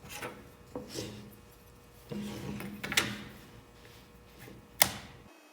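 Several separate knocks and clacks of wood and tools being handled, the sharpest near the end.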